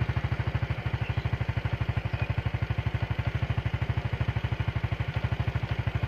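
Motorcycle engine idling steadily, an even low throb of about a dozen beats a second.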